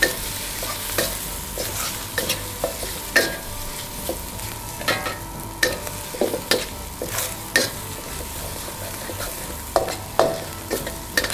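Chopped shrimp sizzling in oil in a stainless steel wok as a metal wok spatula stirs and scrapes it, with irregular clinks of the spatula against the pan over the steady frying hiss.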